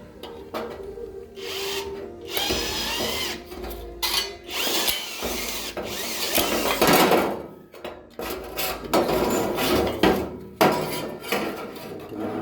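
Electric drill driving a sheet-metal shear attachment through thin 0.3 mm spandek steel roofing sheet. It runs in uneven spurts of varying loudness, with a metallic rasp and wavering high squeals, and the cut goes smoothly.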